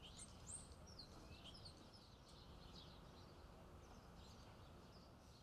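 Faint birds chirping in short, quick calls over a steady low outdoor rumble.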